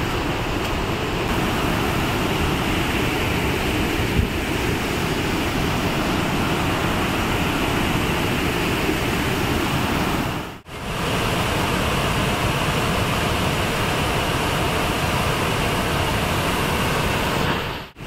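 Steady, dense rush of the Gundicha Ghaghi waterfall on the Musala river heard from close by, the water falling heavily in monsoon flood. The sound drops out for a moment about ten and a half seconds in.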